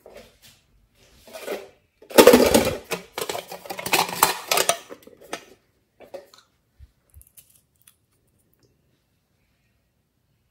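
A small glass nail-polish bottle being handled: a dense run of clicking and scraping lasting about three seconds, then a few faint taps.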